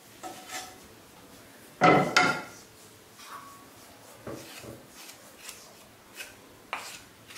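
A wooden spatula scraping thick coconut burfi mixture out of a nonstick pan onto a steel tray, with one loud ringing metal clank about two seconds in. After it come lighter knocks and scrapes as a steel spoon pushes the mixture off the spatula onto the tray.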